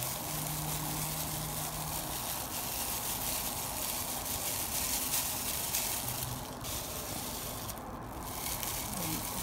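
A steady hissing noise, with a brief low hum early on.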